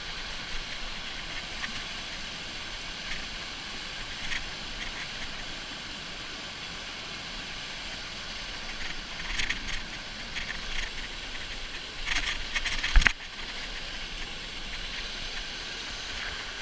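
Small waterfall on a stream pouring steadily into its pool, a constant rush of water. In the second half there is rustling and scraping against the vegetation on the bank, then a single sharp knock about three-quarters of the way through, the loudest sound.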